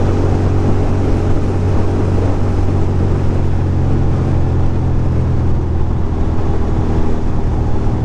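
2006 Ducati Monster 620's air-cooled L-twin engine running at a steady cruise, with wind rush over the microphone.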